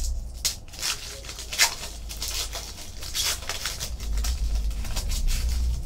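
Foil trading-card pack wrapper being crinkled and torn open by hand: a run of irregular sharp crackles.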